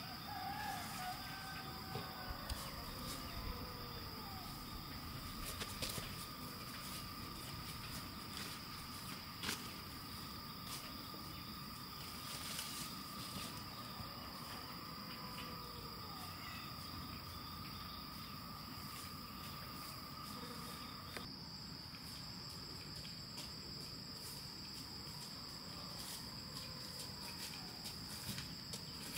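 Insects droning steadily in a high-pitched continuous tone, joined by a second, lower insect tone that stops about two-thirds of the way in. A few faint knocks now and then.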